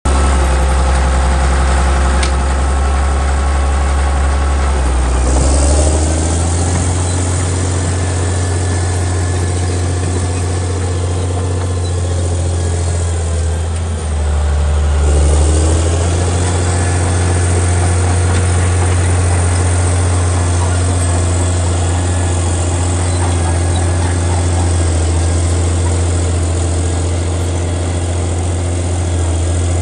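Caterpillar D6D bulldozer's six-cylinder diesel engine running steadily while the machine works, its note rising twice: about five seconds in and again about halfway through.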